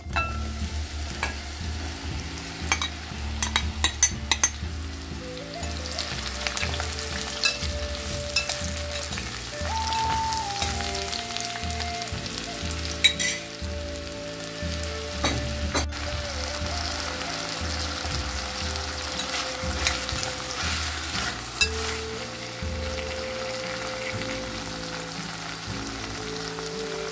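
Sliced button mushrooms sizzling as they fry in hot oil in a glass pot. Sharp clicks and scrapes of a metal spoon on the plate and glass come as the mushrooms are tipped in and stirred, most often a few seconds in and again about halfway.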